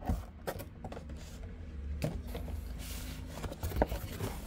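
Packaging being handled on a table: a few light knocks and some rustling.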